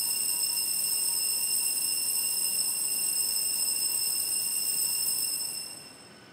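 Altar bells ringing with a steady, high ring at the elevation of the consecrated host, marking the moment of consecration. The ringing fades away near the end.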